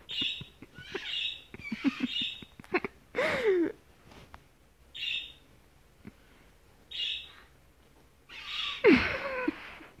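Pet white cockatoo calling: a string of short calls every second or two, with two louder, longer calls whose pitch falls, about three seconds in and again near the end.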